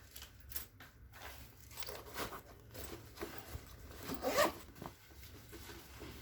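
A zipper being pulled in several short strokes, the loudest about four seconds in.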